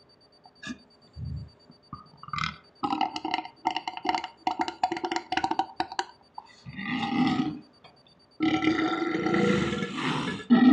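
A man burping: a crackling, rattling belch for a few seconds, a short burp, then one long drawn-out belch near the end.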